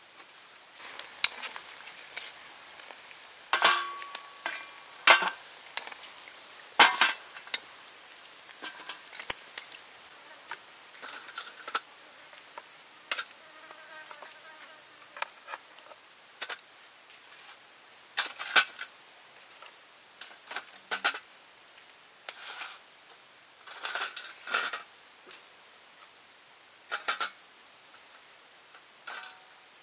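Irregular sharp clicks and taps of metal tongs setting crisp deep-fried snake pieces down on a wooden board, the pieces knocking and crackling against each other.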